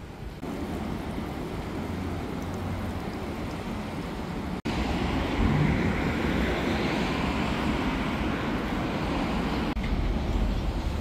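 Steady vehicle noise, a low rumble with hiss above it, broken off sharply twice, about four and a half and ten seconds in.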